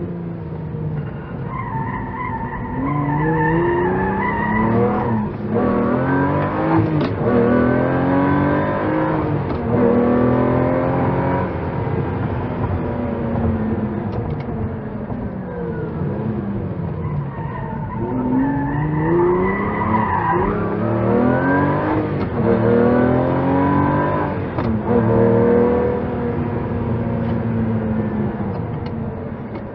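Lamborghini supercar engine revving hard and accelerating through the gears, its pitch climbing and then dropping at each shift, in two long runs.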